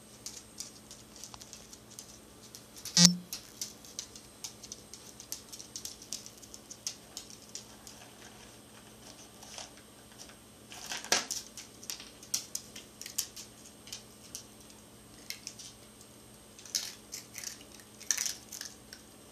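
Miniature pinscher eating and playing with dry dog food: irregular crunching and clicking of kibble and the plastic bowl, with one sharp knock about three seconds in and denser bursts of clicks near the middle and near the end.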